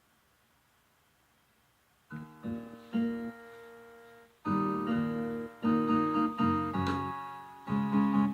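Near silence for about two seconds, then the instrumental intro of a song starts: plucked and strummed acoustic guitar notes, growing louder after about four seconds in.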